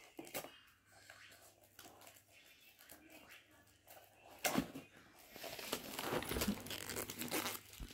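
Scissors cutting into the wrapping of a small cardboard product box: faint snips and handling at first, a sharp snip about four and a half seconds in, then the wrapping tearing and crinkling.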